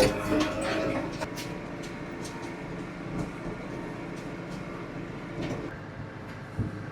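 Vehicle engine running steadily while driving, with scattered light clicks and rattles over the hum.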